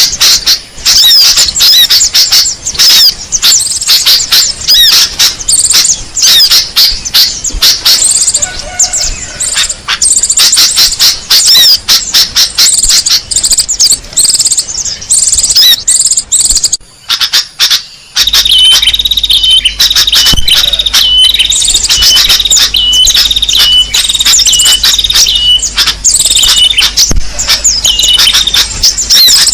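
Bird-lure recording of small songbirds: dense, rapid chirping and twittering. About two-thirds through it cuts out briefly and resumes as a different section in which one short call repeats over and over above the chatter, with a low hum underneath.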